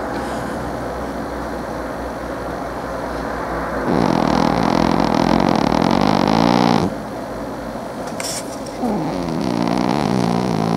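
Domestic cat snoring in sleep: two long, loud snores, one starting about four seconds in and lasting some three seconds, another starting near nine seconds, with quieter breathing between.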